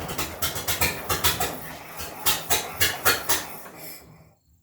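1924 Dodge four-cylinder engine firing unevenly with irregular pops, then cutting out abruptly about four seconds in: it is not yet running right after the carburetor was refitted.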